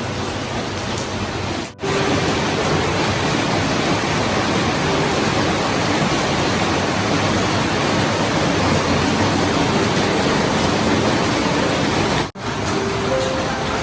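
Steady rain coming down hard, an even hiss. It drops out for an instant twice, near two seconds in and near the end.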